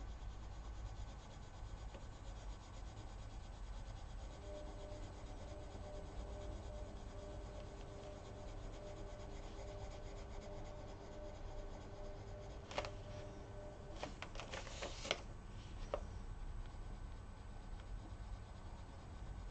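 Coloured pencil rubbing on paper in quick small strokes, blending colour into a drawn leaf. A faint steady hum runs under it for a while, and there are a few sharp clicks about 13 to 15 seconds in.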